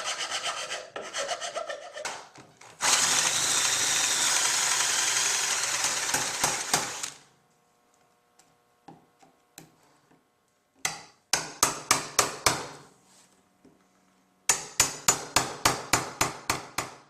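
Hand rasp or file strokes on walnut and maple hardwood, coming in quick rhythmic bursts of about four strokes a second. A steady rushing noise about four seconds long comes between the bursts, and a few faint ticks follow it.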